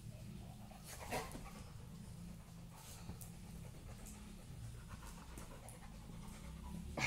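Yellow Labrador panting as it mouths and tugs at a plush toy, with a few soft clicks and rustles, the loudest about a second in.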